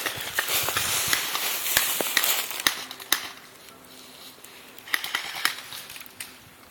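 Rustling and crunching of dry brush and leaves, with a few sharp clicks; loud for about the first three seconds, then fainter, with another short rustle about five seconds in.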